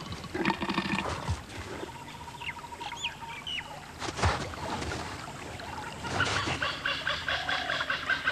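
Wild animal and bird calls outdoors: a few short rising chirps, two brief knocks, and then, about six seconds in, repeated harsher calls that rise and fall in pitch.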